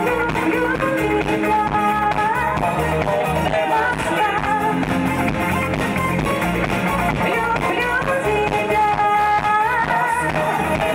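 A woman singing into a microphone over band music with a steady beat.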